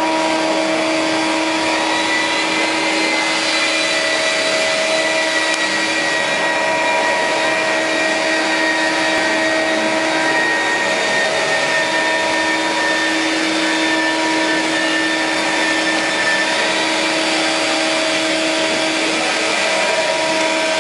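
Spindle of a 3D stone-carving CNC router running steadily, a constant motor whine over a loud hiss, with a high tone that drifts slightly in pitch.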